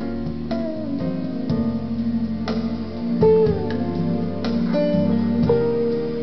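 Guitar music with plucked and strummed notes, played from a computer through the tape input of a repaired Bang & Olufsen Beomaster 900K germanium-transistor receiver.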